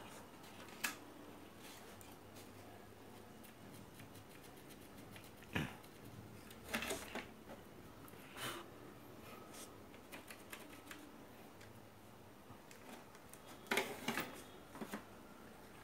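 Scattered light clicks and taps from parts and wires being handled on an opened CRT television, with faint room tone between them. The clicks come singly at first, then in a short cluster about seven seconds in and another near the end.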